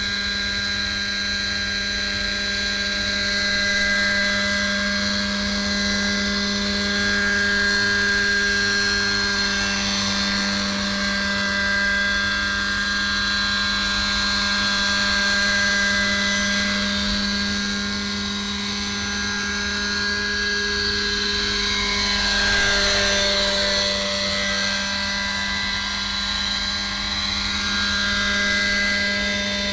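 Radio-controlled scale model helicopter hovering low. Its glow-fuel engine runs at a steady high pitch under the rotor whine. About three-quarters of the way through, the sound swells briefly and the pitch dips and recovers.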